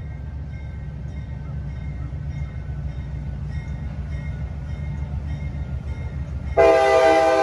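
Diesel locomotive of an approaching CSX freight train rumbling low and steady. Near the end its air horn sounds loudly, a chord of several tones.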